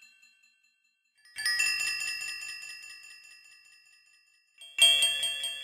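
Two bursts of chime-like metallic tones, each a rapid flurry of struck high notes that rings out and slowly fades. The first comes about a second in; the louder second one comes near the end.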